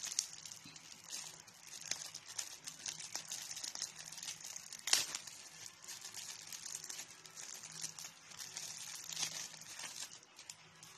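Thin clear plastic packaging crinkling and crackling as it is handled and unwrapped by hand. The loudest sharp crackle comes about halfway through.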